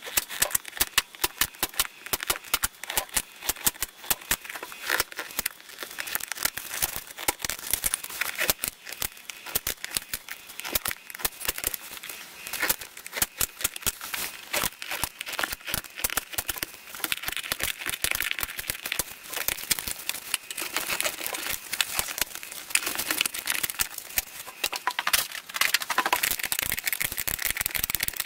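Staples being pried out of the underside of a motorcycle seat with a flat screwdriver: a dense, irregular run of small clicks and snaps, with the vinyl seat cover crinkling as it is worked loose.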